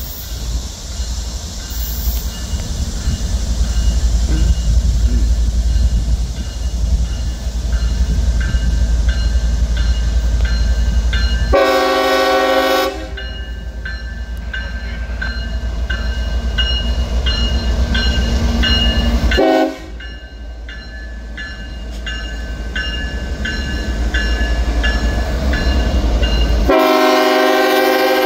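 Approaching CSX freight train: a low diesel locomotive rumble builds over the first few seconds and stays loud. The lead locomotive's air horn sounds one long blast about halfway through and another starting near the end.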